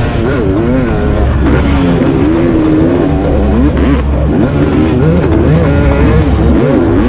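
Two-stroke motocross bike engines revving hard on and off the throttle around a track, their pitch climbing and dropping again and again.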